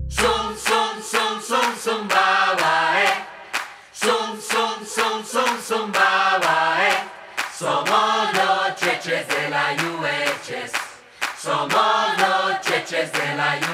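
Music: a group of voices singing, with little or no instrumental backing and no drums.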